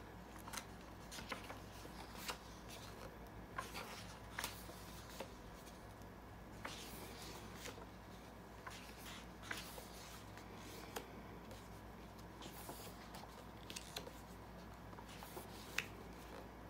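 Pages of a large, thick-papered hardcover book being turned by hand: faint, scattered paper rustles and soft taps over a steady low hum.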